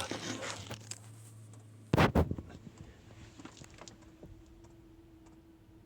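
A single dull knock about two seconds in, like the camera or microphone being bumped as it is moved, followed by faint, irregular light ticks and a quiet steady hum.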